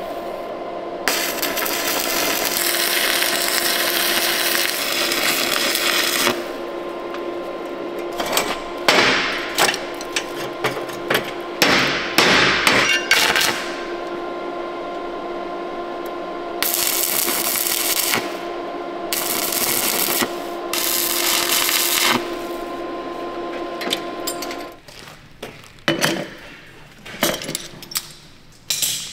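Stick welding along the edges of a stack of steel plates, joining them into a billet for Damascus steel: the arc crackles and hisses in several long runs, with sharp knocks between them, over the steady hum of the welding machine. About four seconds before the end the hum stops, and a few metal clanks follow.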